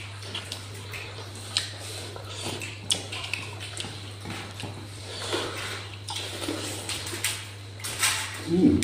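Close-miked eating sounds of duck curry and rice eaten by hand: wet chewing, lip smacking and small clicks as fingers work the food on a steel plate. A steady low electrical hum runs underneath, and a louder mouth sound comes just before the end.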